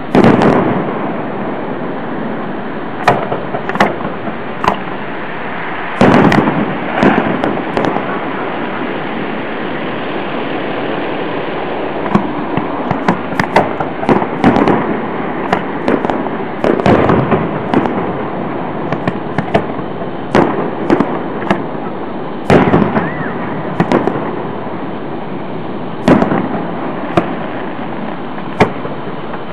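Aerial fireworks shells bursting overhead: several loud booms a few seconds apart, with many smaller pops and cracks in between.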